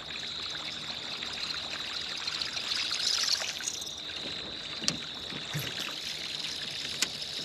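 Water trickling and lapping against a small boat, under a steady high-pitched insect-like drone, with two faint clicks near the end.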